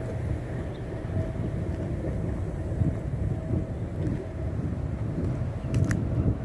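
Wind rumbling on the microphone, rising and falling in gusts, with a faint steady hum underneath and one sharp click near the end.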